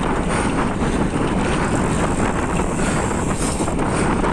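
Steady rush of wind over the microphone of a camera riding on a moving road bike.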